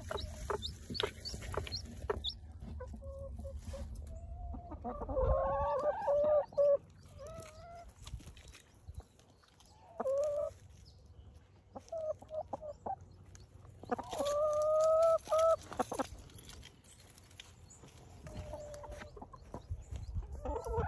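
Chickens calling. Short, high chick peeps come in the first couple of seconds, then hens cluck and give drawn-out calls, two of them lasting a second or two each, about a quarter and about two-thirds of the way through.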